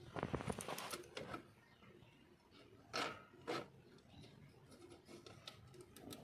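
Scraping and rattling of parts being handled, then two sharp knocks about half a second apart and a few light clicks.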